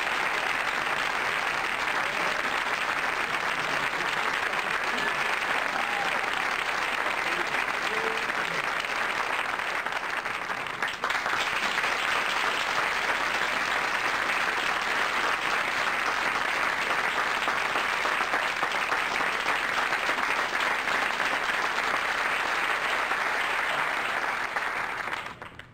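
Audience applauding, a dense, even clapping with a brief dip about eleven seconds in; it stops abruptly near the end.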